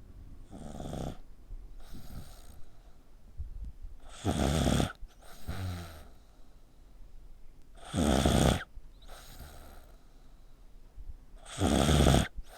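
A sleeping pet snoring like a person: a loud snore followed by a softer one, repeating about every four seconds, the first cycle fainter than the rest.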